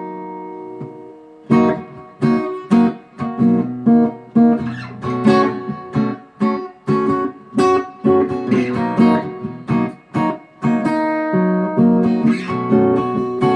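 Acoustic guitar song intro: an opening chord rings and fades, then steady rhythmic strumming at about two strums a second.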